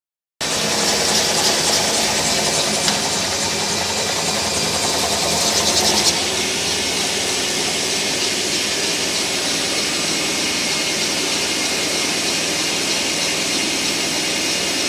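Rotovac rotary carpet extractor scrubbing carpet: a steady machine whir with a strong hiss of suction and spray. The hiss turns a little duller about six seconds in.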